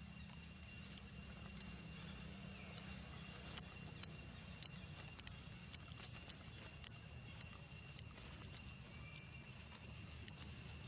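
Faint outdoor ambience: a steady high-pitched whine that holds one pitch, scattered soft clicks and ticks, and a low rumble underneath.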